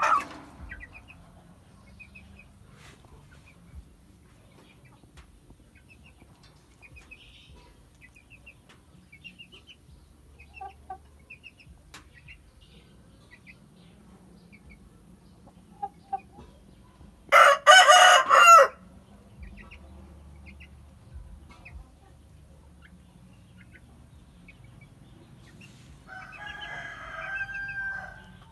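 A gamecock rooster crows once, loudly, for about a second and a half a little past the middle, and gives a softer clucking call near the end.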